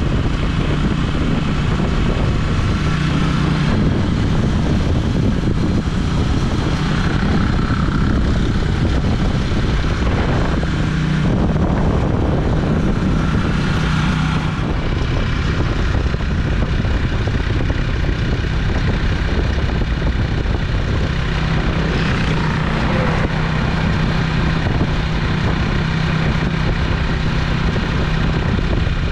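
Motor vehicle running steadily while riding along, a constant low engine hum under loud rushing wind and road noise.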